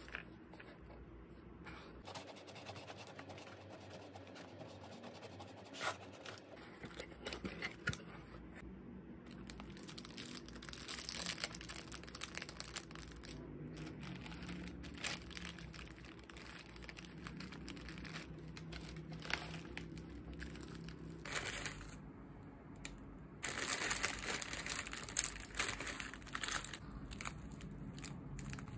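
Plastic bags and wrapping crinkling and rustling as a cardboard mailer box of craft supplies is opened and bags of beads and glitter are lifted out, in uneven handling bursts that are loudest about a third of the way in and again near the end.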